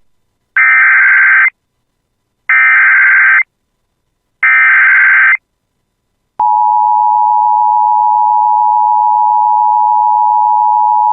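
Emergency Alert System header: three bursts of SAME digital data tones, each about a second long with a gap of about a second between them. About a second after the last burst, the steady attention-signal tone starts and holds.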